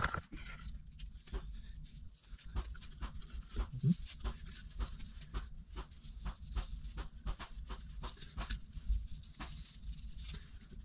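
Rustling and crackling of a cloth rag being twisted and wiped between nitrile-gloved hands: irregular small clicks and crinkles over a steady low rumble.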